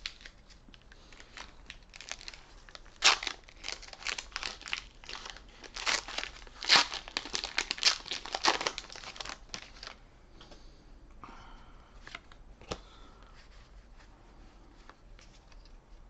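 Foil wrapper of a Pokémon trading-card booster pack crinkling and tearing as it is torn open, a fast crackle that lasts about ten seconds and then dies down, with one sharp tap later on.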